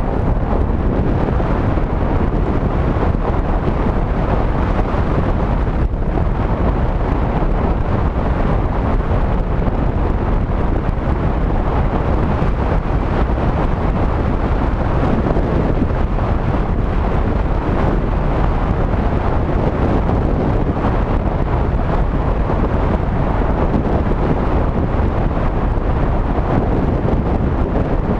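Steady wind buffeting a moving action camera's microphone, a loud, even rushing and rumble with no engine note standing out.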